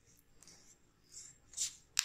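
Wooden stick spreading and pressing wood filler paste onto a wooden rifle stock: soft scraping and squishing strokes, with two short scrapes a little past a second in and a sharp click at the very end.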